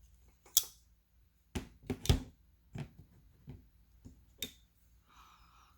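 About eight sharp, irregular clicks and knocks of small metal pocket tools being handled, the loudest about two seconds in.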